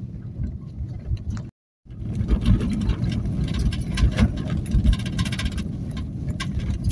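Inside a moving car on a rough, broken road: steady low road and engine noise with frequent knocks and rattles as the car goes over the uneven surface. The sound cuts out for a moment about a second and a half in, then comes back louder.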